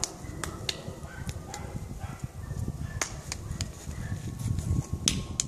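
Dry fallen leaves crackling underfoot as a person shifts his weight, with scattered sharp crackles over a low rumble.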